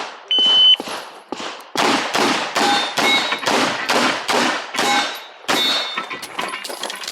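A shot-timer start beep, then a rapid string of 9mm pistol shots, about three a second, from a KMR Spectra fired through an IPSC stage. There is a brief pause about five seconds in.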